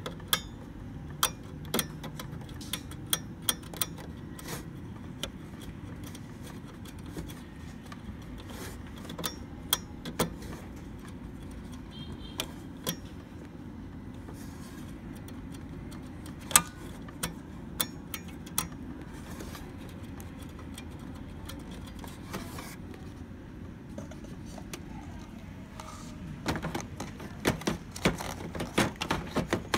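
Scattered sharp clicks and taps of fingers working at the metal spring contacts of a laser printer's toner cartridge connector, over a steady low hum. Near the end the clicking grows busier as the toner cartridge is handled in its bay.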